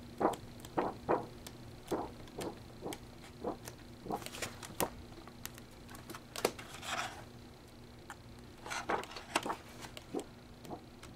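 Pages of a scrapbook paper pad being turned one after another: a run of short paper rustles and flicks, with a longer sliding swish about seven seconds in.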